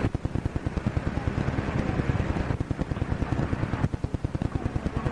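Fire alarm telegraph sounders clicking in a rapid, even run, the noise of alarm signals being repeated out over the telegraph lines.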